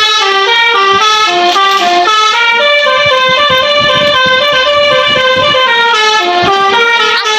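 Basuri musical bus horn playing a melody, a run of held notes stepping up and down several times a second without a break, heard from outside the bus.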